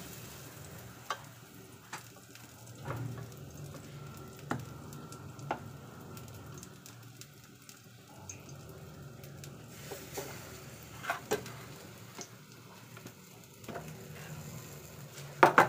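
Faint steady sizzle of a hot pan, with a metal spoon clinking and scraping against a steel bowl as bread slices are coated in besan batter. A sharper metal clatter comes near the end.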